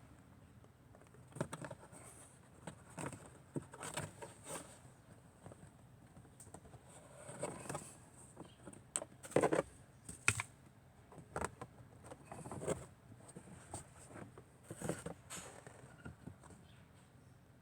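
Scattered light plastic clicks and short rustles of hands handling a Hyundai YF Sonata's cabin air filter and its plastic housing cover, with the firmest knock about halfway through.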